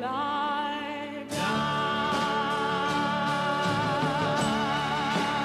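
A woman singing a long held note with vibrato. About a second in, the full group comes in louder: folk-pop vocal harmony with acoustic guitars and double bass.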